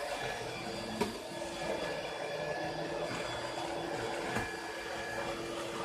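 Bissell Bolt 2-in-1 cordless lithium-ion stick vacuum running steadily with its even motor hum while sweeping up debris. Two sharp clicks, about a second in and past the four-second mark.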